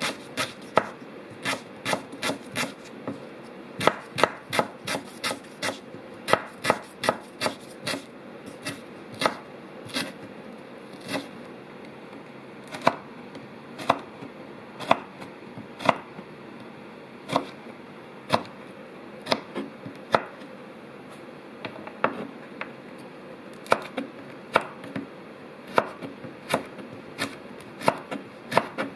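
Knife chopping on a cutting board: irregular sharp strikes, sometimes several quick chops in a row, sometimes single blows a second or more apart.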